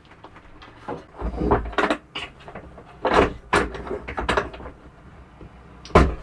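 Clunks and knocks of a folding tonneau cover being set down and latched on a pickup bed, a dozen or so separate hits, the heaviest about three seconds in and near the end.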